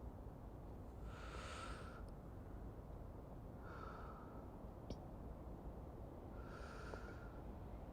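Slow, soft breathing close to the microphone, three breaths about two and a half seconds apart, over a faint, steady low rumble.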